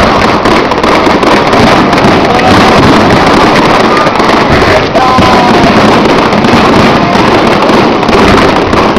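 Fireworks display: aerial shells bursting and crackling in a loud, continuous barrage.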